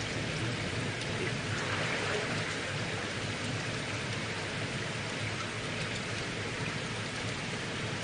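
Steady, rain-like hiss of bubbling and splashing water from aquarium tanks' aeration and filters, with a low steady hum underneath.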